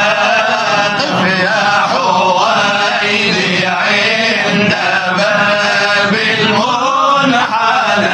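Male Sufi munshidin chanting a devotional inshad, one voice sliding through long, ornamented melodic phrases without a break.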